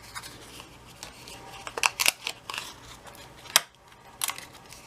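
Die-cut cardstock being handled: paper rustling with a few short, sharp clicks and snaps, the sharpest about three and a half seconds in.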